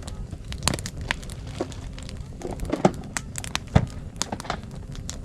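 Campfire crackling, with irregular sharp pops and snaps over a low steady rumble.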